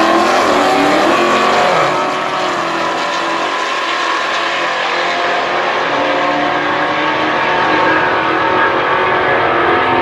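Two drag-racing cars, a Dodge Challenger and an older muscle car, launching off the line and accelerating hard down the strip at full throttle. Their engines rise in pitch in the first couple of seconds and then run loud and steady as the cars pull away.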